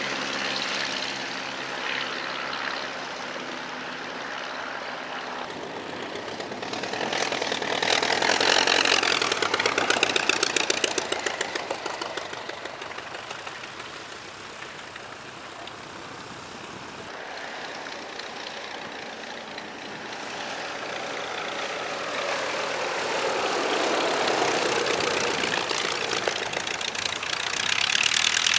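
Vintage light aircraft piston engines and propellers. At first one engine runs steadily at low power. An Auster then flies close by, its engine and propeller growing loud with the pitch sliding as it passes. After a quieter stretch a de Havilland Tiger Moth takes off under power, growing loud near the end.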